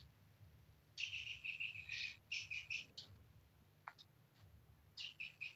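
Faint high-pitched chirping from a small bird or insect in quick runs of short notes, about seven a second, starting about a second in and again near the end, over a faint steady low hum.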